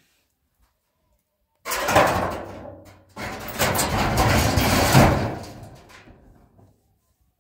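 Corrugated metal roofing sheet scraping and rattling as it is shoved up over the top of a concrete-block wall. It comes in two noisy stretches, the first starting suddenly, the second longer and trailing off.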